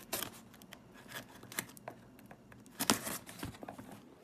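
Packing tape being peeled off a cardboard box: scattered crackles and short rips, the loudest a little before three seconds in.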